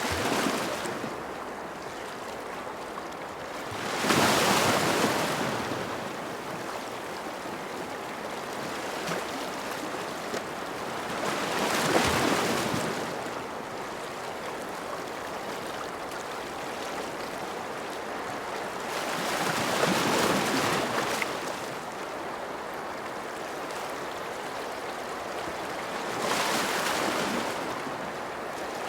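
Ocean surf: four waves swell and break about every eight seconds over a steady hiss of water.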